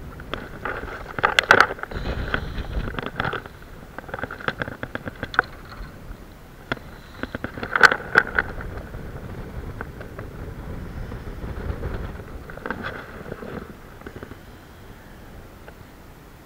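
Wind rumbling on the microphone, with scattered sharp clicks and rattles, the loudest about a second and a half in and again about eight seconds in.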